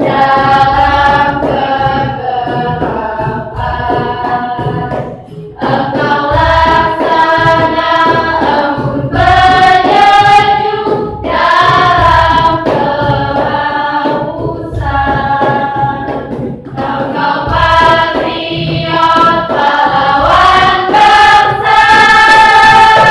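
School choir singing a song, with sustained notes and a long held note near the end.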